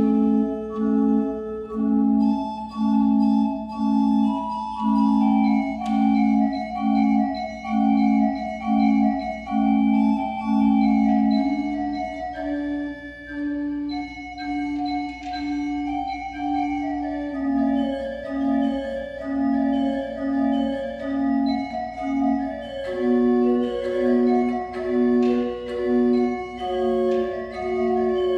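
Nineteenth-century pipe organ playing a piece: a melody over a steady pulse of repeated low notes, which hold still for a few seconds in the middle before the pulse returns.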